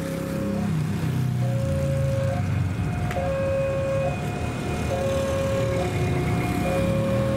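Railway level-crossing warning alarm sounding: two electronic tones, a lower and a higher one, alternating steadily, each held for a little under a second, over a low engine rumble.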